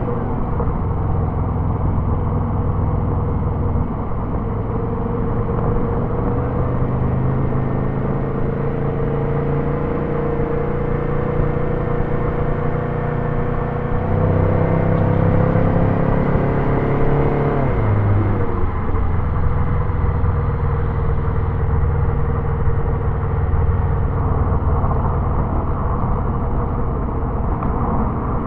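Turbocharged Subaru flat-four engine pulling on the move, its note slowly rising, then louder and higher about halfway through before falling sharply in pitch a few seconds later. It then settles to a steady note over a low road rumble.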